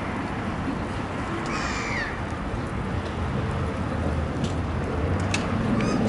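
Western jackdaw giving a short harsh call about one and a half seconds in, its pitch falling, with another call starting at the very end, over a steady low background rumble.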